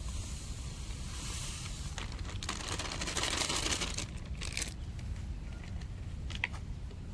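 Granulated sugar pouring from its packet into a mixer-grinder jar: a grainy hissing rush that swells about a second in, then thins out after a few seconds, with some rustling of the packet.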